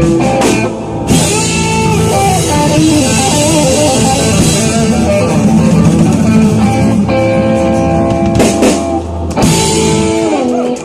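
Live rock band playing: electric guitar chords over bass and drum kit, with a cymbal crash about a second in whose wash rings on through the music.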